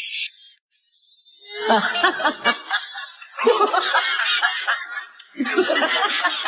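Laughter in three bursts of quick chuckling pulses, over background music.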